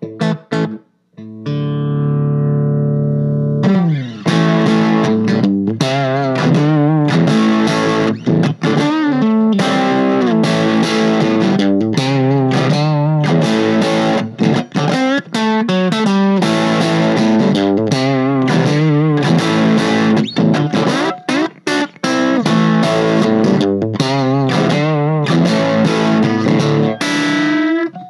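Electric guitar played through a freshly recapped 1965 Fender Champ tube amp. After a brief gap about a second in, a chord rings and fades, then steady picked and strummed playing runs from about four seconds in.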